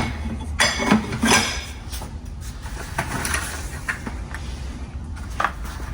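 Metal objects clanking and clinking as junk is handled, with a few sharp ringing clinks in the first second and a half, then quieter shuffling and one more knock near the end.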